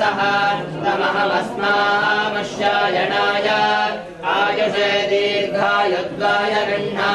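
Several voices chanting together in unison, holding long notes with brief breaks between phrases: Hindu devotional chanting.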